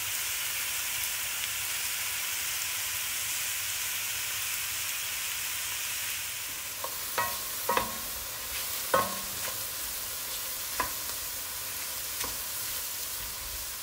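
Mushrooms, leeks and onion sizzling in butter in a stainless steel skillet. In the second half, a wooden spoon stirring knocks against the pan about half a dozen times, each knock ringing briefly.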